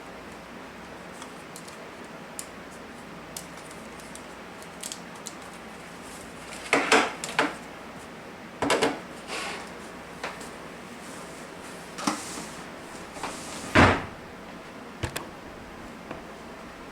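Handling noises from setting up a cordless phone: scattered clicks, knocks and rustles as the base, handset and cords are put in place, with a few louder knocks about seven, nine and fourteen seconds in.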